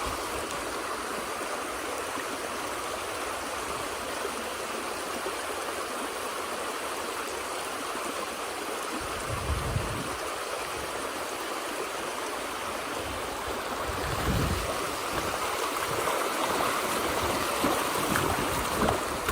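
Small river stream flowing steadily over its bed, an even rushing, with a couple of brief low rumbles about halfway through and again later on.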